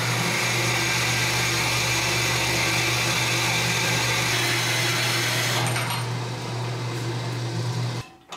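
Horizontal metal-cutting bandsaw cutting through pipe: a steady motor hum with the hiss of the blade in the metal. The cutting hiss fades about six seconds in as the cut finishes, and the motor runs on until it stops about eight seconds in.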